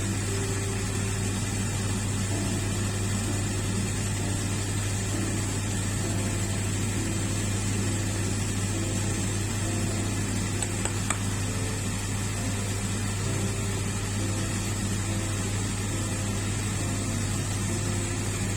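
Steady low mechanical hum, as from a running appliance motor or fan, unchanging throughout, with one faint click about eleven seconds in.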